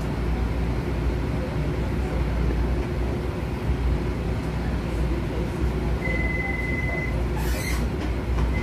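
Interior of a Baltimore light rail car standing at a station, with the steady low hum and rumble of its onboard equipment. About six seconds in, a single steady high beep sounds for about a second, followed by a short hiss.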